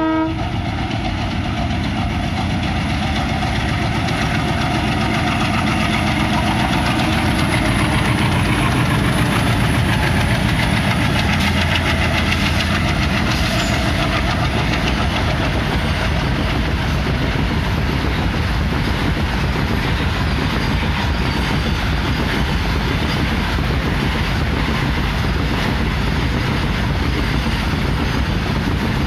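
Horn of twin ALCO WDG3A diesel locomotives cutting off a moment in. The locomotives' engines run past in the first half, then a long rake of covered freight wagons rolls by with steady wheel noise and clickety-clack over the rail joints.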